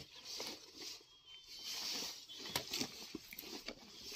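A fabric bedsheet being unfolded and shaken out by hand: soft rustling swishes that come and go, with a few light clicks of handling.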